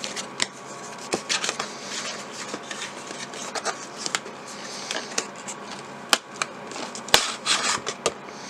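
A camera's retail box being opened by hand: the sleeve tag pulled and the packaging slid apart. Irregular rustles, scrapes and sharp clicks, with a couple of louder clicks late on.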